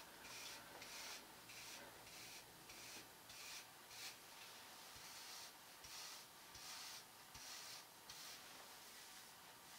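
Faint, regular brushing: a boar-bristle hairbrush stroked through pomade-coated hair, about two strokes a second.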